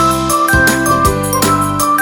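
Background music: a bright, light tune of pitched notes over a steady beat.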